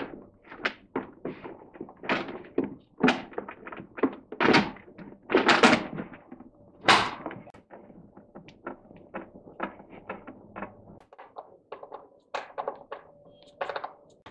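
Hard plastic motor cover of a Flymo hover mower being pushed and knocked into place on the mower body: many irregular knocks and clicks, loudest in the first half. Smaller, quieter ticks follow as a screwdriver drives in the cover's screws.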